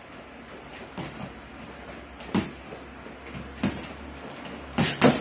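Boxing gloves landing punches on a sparring partner's padded gloves and headgear: a few separate smacks over a couple of seconds, ending in a quick double that is the loudest.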